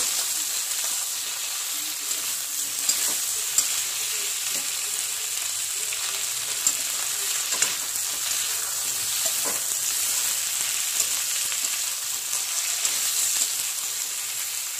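Fried bata fish and okra sizzling in oil in a steel kadai while a metal spatula stirs them, with scattered sharp clicks and scrapes of the spatula against the pan.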